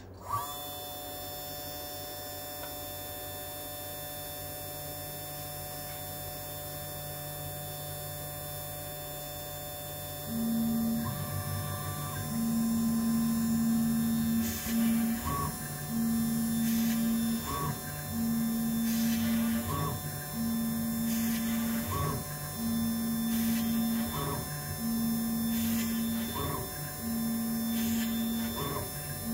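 Small CNC machine cutting a circuit board: the spindle motor switches on with a steady whine. From about ten seconds in, the stepper motors hum as they drive the tool back and forth in passes of about two seconds, with a short break and a tick at each reversal.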